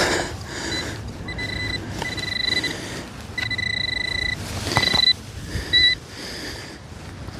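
Metal detector's steady electronic tone sounding on and off at one fixed pitch, five beeps of uneven length, as it sweeps over a metal target in freshly dug soil. Wind noise and a couple of knocks from handling the soil run underneath.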